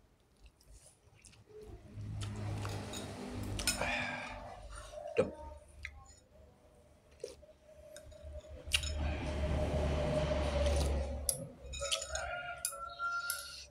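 A man slurping noodles and chewing, with two slurps of a couple of seconds each, about two seconds in and again near nine seconds. Between them a spoon and fork click and clink against a glass bowl.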